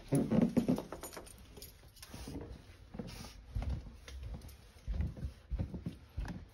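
Footsteps climbing carpeted stairs: dull low thumps about every half second, starting about halfway through. A louder scuffing, rubbing noise, likely the phone being handled, comes in the first second.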